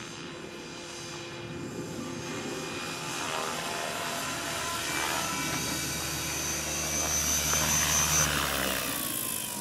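Gaui Hurricane 425 electric RC helicopter: steady motor whine and rotor noise growing louder as it comes in close to land. About eight seconds in the high motor whine cuts off, and the rotor sound falls away in a descending tone as it spools down.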